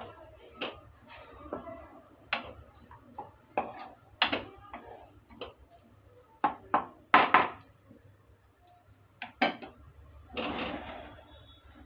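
Wooden spatula stirring grated bottle gourd and sago pearls in a non-stick frying pan: irregular knocks and short scrapes against the pan, with a longer scrape about ten seconds in.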